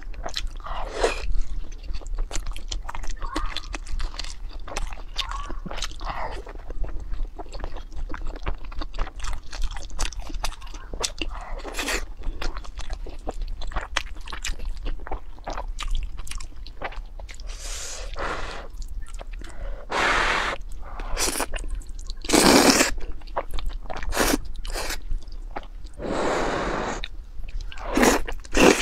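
Close-miked eating: wet chewing and mouth clicks as a dumpling is chewed, then several long, loud slurps of noodles in spicy sauce in the second half.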